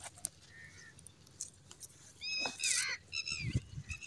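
A bird giving a quick run of short, arching squawks from about two seconds in. Rustling and a few low thumps come near the end.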